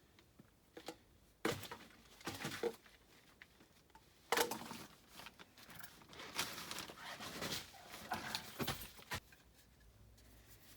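Scattered clanks, rattles and rustling of tools and parts being handled, with the loudest clatter about four seconds in.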